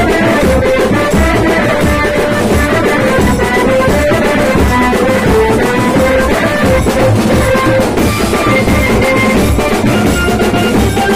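Loud live street-band music for a Ganesh procession: drums beating a steady, driving rhythm under a melody line.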